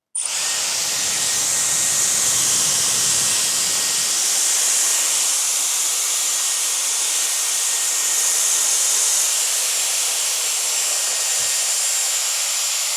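Dyson Airwrap i.d. hair styler blowing air as it styles a section of hair: a loud, steady rush of air with a faint high motor whine. It switches on abruptly at the start, and the first few seconds carry an added low rumble.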